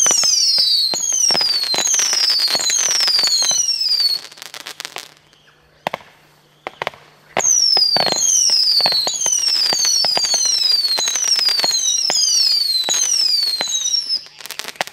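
Lesli Firespitter 102-shot firework cake firing shot after shot, each a falling whistle, over sharp pops and crackles. A first run of about four seconds gives way to a lull of scattered pops, then a second, longer run that stops about a second before the end.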